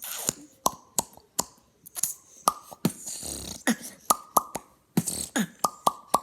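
Beatboxed mouth pops made with the top lip pulled down as in a frown: a quick run of sharp pops, several ringing with a short falling tone, with a couple of breathy hisses between.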